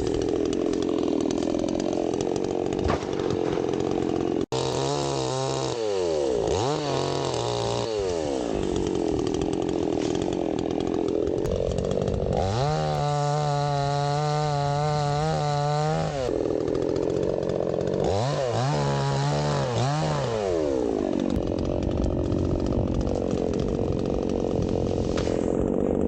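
Baumr-AG SX52 two-stroke chainsaw fitted with a new chain, revving and cutting wood. Its engine pitch drops and recovers again and again as the chain bites into the timber. The sound breaks off briefly about four and a half seconds in.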